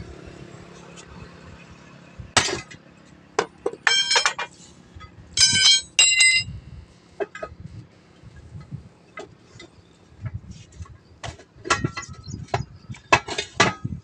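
Sledgehammer blows on a tool set against a steel truck wheel rim, working the tyre bead off: several sharp metallic clanks, some ringing, between about two and six seconds in. Lighter metal clanks and knocks come near the end as the steel rim is handled and lifted out of the tyre.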